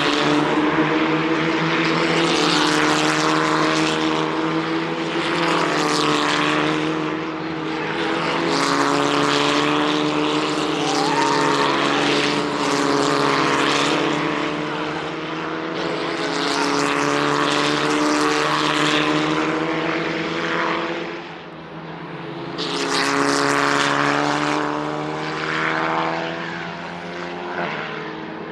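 Race cars passing on a circuit one after another, each pass a rising and falling rush of engine note and tyre and wind noise over a steady drone of engines.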